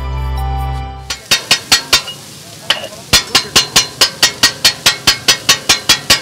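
Background music for about the first second, then metal spatulas striking a flat iron griddle as food is chopped and tossed on it. A quick run of clanks comes first, then a short pause with faint sizzling, then steady clanks about five a second.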